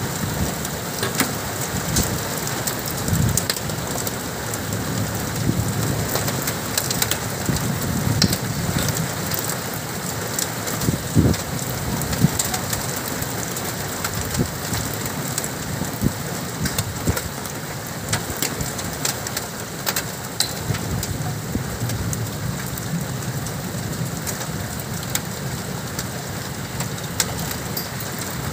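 Heavy rain pouring down, with close drops striking a surface as a dense stream of sharp ticks. A low rumble swells and fades at times underneath.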